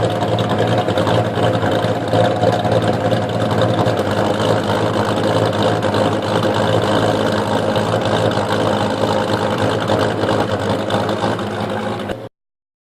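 Car engine idling steadily through an aftermarket exhaust system, with an even, unchanging note that cuts off abruptly near the end.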